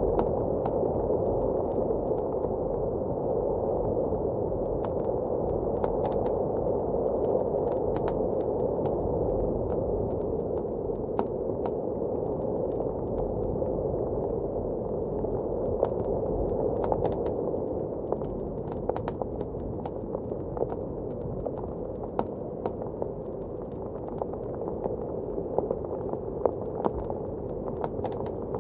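Wood fire crackling with scattered sharp pops over a steady, muffled rush of blizzard wind.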